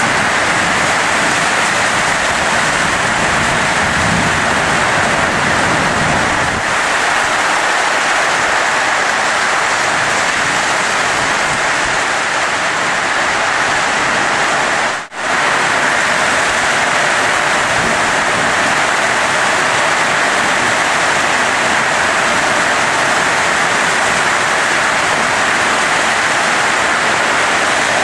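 Heavy thunderstorm rain pouring down in a steady, loud hiss, cut off for an instant about halfway through.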